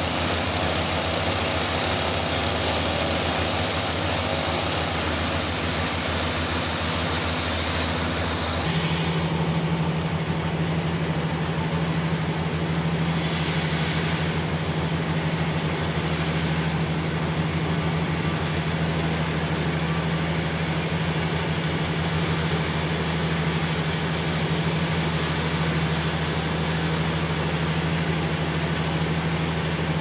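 Sawmill machinery running steadily. About nine seconds in its sound changes abruptly to a steadier, deeper hum with less hiss.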